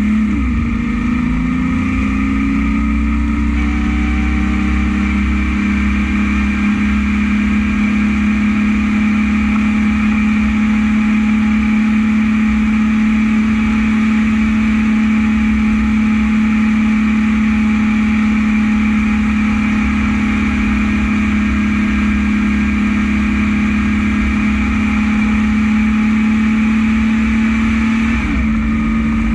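Heavy dump truck's diesel engine pulling steadily under way, heard from the cab. The pitch glides as gears change right at the start and again near the end.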